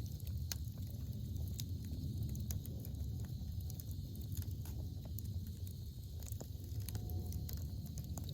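Wood campfire crackling, with scattered sharp pops and snaps over a low steady rumble.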